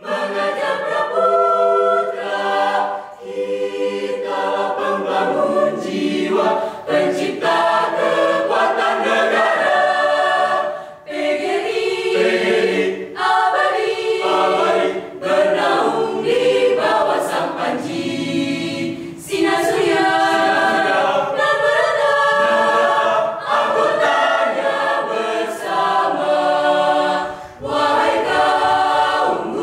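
Mixed choir of men and women singing a cappella, several voices sounding together, in phrases broken by short breaths.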